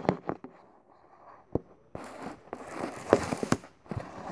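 Handling noise from the camera being adjusted: fingers bumping and rubbing close to its microphone. A few sharp clicks come near the start, then a quiet second, then two rustling scrapes with knocks from about two seconds in.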